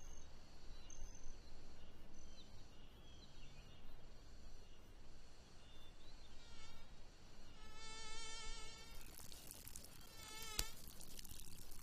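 Faint woodland ambience of insects buzzing steadily, with a wavering call lasting about a second around eight seconds in and a short sharp chirp near the end.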